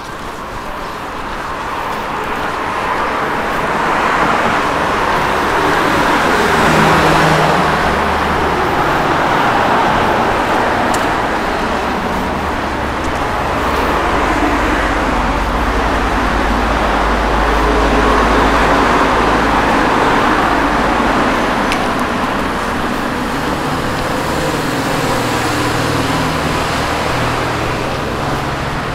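City road traffic: several cars passing one after another, the noise swelling and fading in turn.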